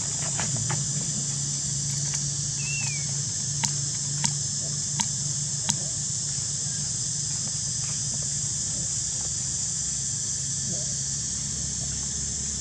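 Steady high-pitched buzz of insects, with a brief chirp about three seconds in and four sharp clicks about two-thirds of a second apart near the middle.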